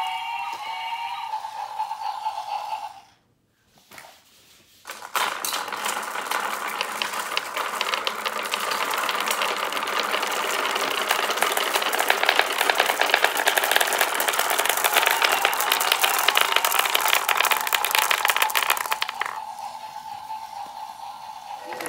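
Many glass marbles rolling and clattering down a wooden marble run and knocking into a pile of marbles at the bottom: a dense, rapid clicking that starts about five seconds in and eases off near the end.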